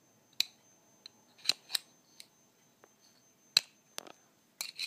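A string of about ten short, sharp clicks and taps, irregularly spaced, from hands handling small hard parts of a fire alarm setup. A faint steady high-pitched tone sits underneath.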